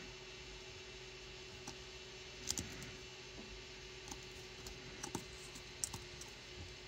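A few faint clicks and taps as fingers press a small circuit board, with its coin-cell battery, into a 3D-printed plastic case: two close together about two and a half seconds in, then single clicks about five and six seconds in, over a faint steady hum.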